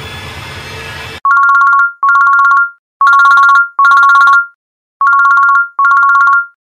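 Background music cuts off about a second in, then a desk telephone's electronic ringer sounds three double rings, each ring two steady tones held together, with short silent gaps between the pairs.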